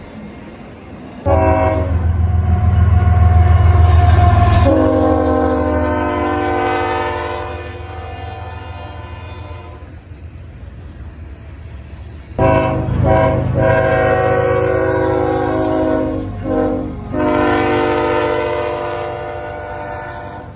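Diesel locomotive's air horn sounding, a long blast over a low engine rumble whose pitch drops about five seconds in as it passes. A second long sounding follows, broken by a short toot near the end, like a grade-crossing signal.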